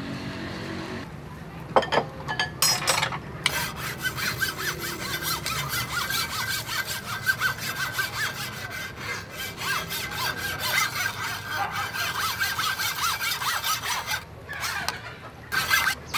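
Rapid, rhythmic scraping of a kitchen utensil in a cooking vessel, after a few sharp knocks in the first seconds. The scraping stops about two seconds before the end.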